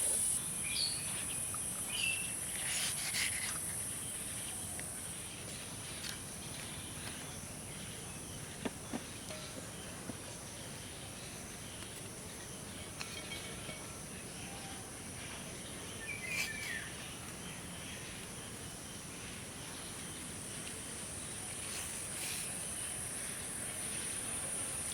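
Outdoor insect chorus: a steady high-pitched buzz that is stronger at the beginning and toward the end. A few short bird chirps come over it, three close together early on and one about sixteen seconds in.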